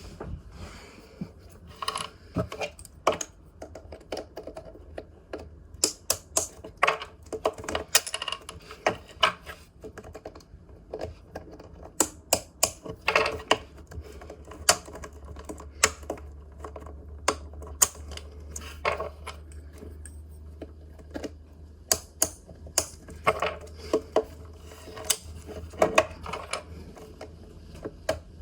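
Sharp plastic clicks, irregular and often in small groups, from a multi-tool turning the center-travel adjusters of a MoYu Super Weilong magnetic speedcube, stepping each center a few clicks tighter, mixed with handling of the cube's plastic pieces.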